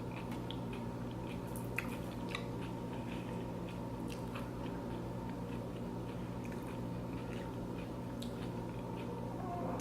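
A person chewing a mouthful of loaded nachos, heard as irregular small wet mouth clicks, over a steady low hum.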